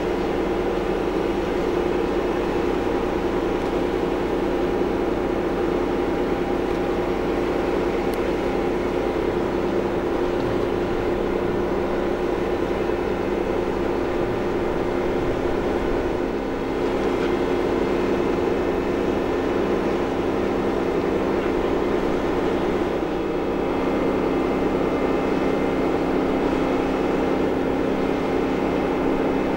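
A crane's diesel engine running steadily under load while it holds the locomotive body on its slings, with a slight change in its note about 23 seconds in.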